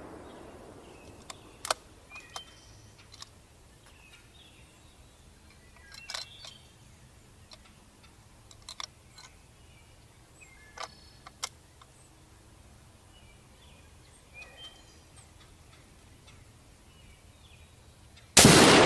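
A 6mm Creedmoor rifle fires once near the end, a loud report that dies away over a couple of seconds. Before the shot it is quiet, with a few light clicks and faint bird chirps.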